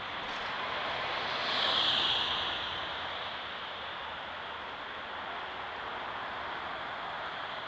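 Road traffic passing on a multi-lane city street: a city bus drives by, its noise swelling to a peak about two seconds in and fading, followed by the steady hiss of tyres and engines from passing cars.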